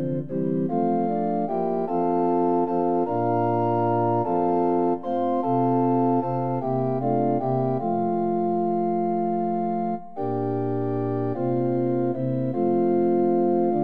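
Organ playing sustained chords in an instrumental passage of a song, changing chord every half second to a second, with a short break about ten seconds in.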